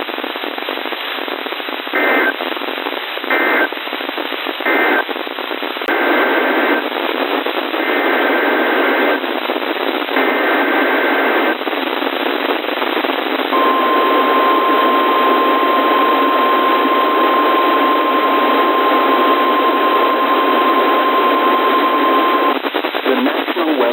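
Emergency Alert System data tones over radio static. Three short warbling two-tone bursts (end-of-message codes) are followed by three longer bursts (the SAME header of the next alert). Then comes a steady 1050 Hz weather-radio alert tone lasting about nine seconds, with hiss underneath throughout.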